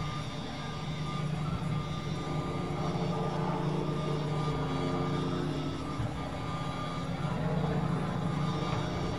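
Constant high-pitched hum from the Guru 360° gimbal stabilizer's motors, picked up by the Nikon KeyMission 360's built-in microphone, with an airplane flying over at the same time.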